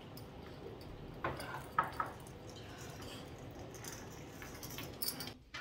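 A few light clinks and knocks of cups and dishes on a dining table, clustered about a second or two in, with another near the end, over quiet room tone.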